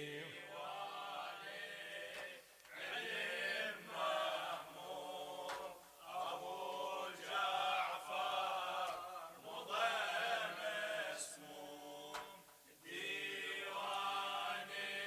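Men's voices chanting a Shia mourning refrain (latmiya) together in unison, in phrases of two or three seconds, softer than the lead reciter.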